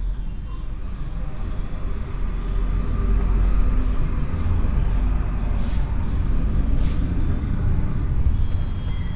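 Cloth wiping a whiteboard, rubbing across the board surface, over a steady low rumble that grows a little louder a few seconds in.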